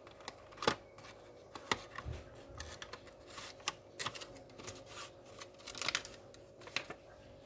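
Light clicks and taps of hands fitting an SSD into a laptop, coming irregularly a few times a second, over a faint steady hum.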